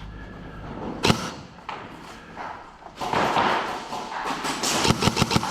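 Airsoft gunfire echoing in a large indoor space: a single sharp shot about a second in, then a quick burst of rapid shots near the end.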